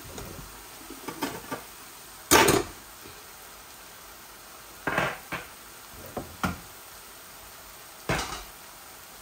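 Metal pans and lids clattering and knocking as they are lifted and set down on a gas hob, about half a dozen sharp knocks with the loudest about two and a half seconds in. A steady frying sizzle runs underneath.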